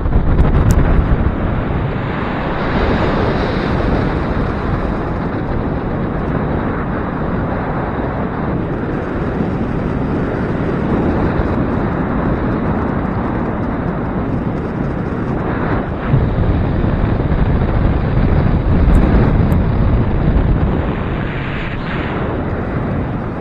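Gusty wind buffeting the microphone: a loud, rumbling noise that swells and eases every few seconds.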